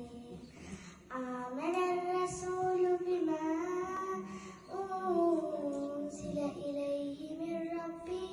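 A young girl chanting a Qur'an recitation in Arabic, a melodic recitation in long drawn-out notes with ornamented bends in pitch.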